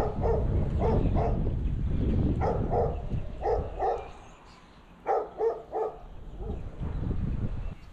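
A dog barking in short runs of two or three barks, over wind rumbling on the microphone.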